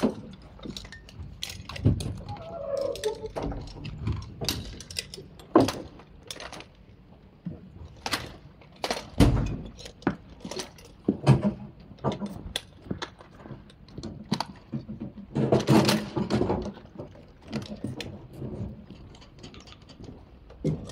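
Irregular metallic clanks, knocks and jingling from a rescue tripod, its winch line and harness hardware as a firefighter climbs out of a manhole shaft. The knocks come unevenly throughout, with the loudest cluster about two-thirds of the way in.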